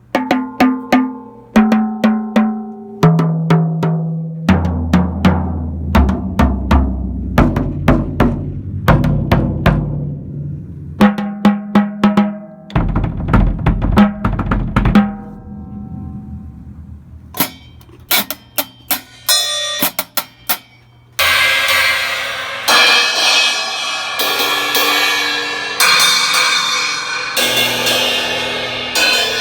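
A drum kit of ten drums and thirteen cymbals sounded one piece after another as a sound check. First come separate tom hits stepping down in pitch, with deep floor-tom and bass-drum strokes among them. From about seventeen seconds in come short cymbal and hi-hat strikes, then a run of long, ringing cymbal crashes.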